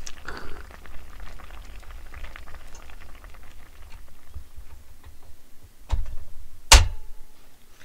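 Kimchi jjigae with Spam bubbling in a wide pan on a burner: a steady low rumble with a scatter of small pops. About six seconds in come two sharp knocks, the second louder.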